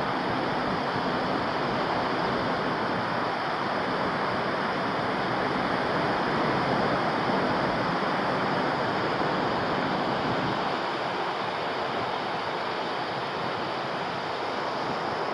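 Ocean surf at a beach, a steady rushing wash with no distinct breaks.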